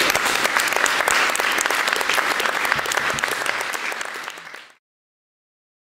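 Audience applauding: dense clapping that eases slightly, then cuts off abruptly to silence a little over a second before the end.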